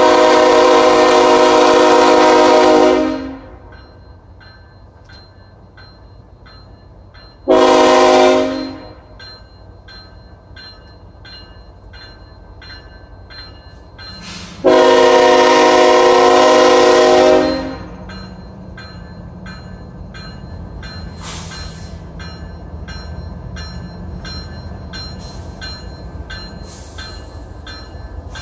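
Freight train's diesel locomotive horn sounding three blasts: a long one, a short one about seven seconds later, and another long one about seven seconds after that. After the last blast the low rumble of the lead CSX diesel locomotives grows steadily as they approach.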